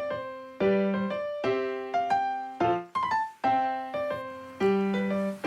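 Background music: a piano or electric piano playing a gentle run of notes and chords, each struck and left to fade before the next.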